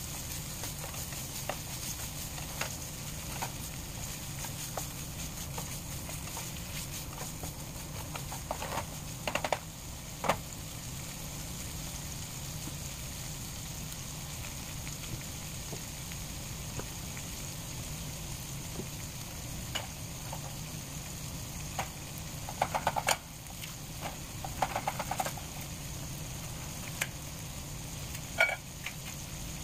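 Sliced sausage frying in a nonstick skillet with a steady low sizzle. A few short knocks and scrapes of a utensil come about a third of the way in and again in the last quarter.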